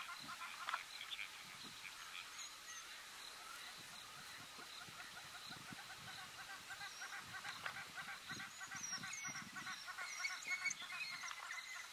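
A continuous chatter of short, high-pitched, honking animal calls from African wild dogs and plains zebras during a chase, repeated many times a second, with soft low thuds beneath.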